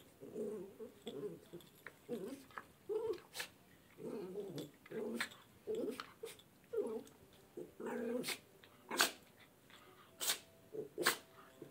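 Small dog growling in short grunts while rolling and squirming on its back on carpet to scratch an itch, broken by several sharp sneezes.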